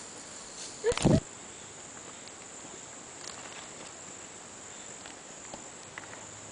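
Steady high-pitched drone of insects such as crickets, with a single loud brief bump about a second in and a few faint ticks.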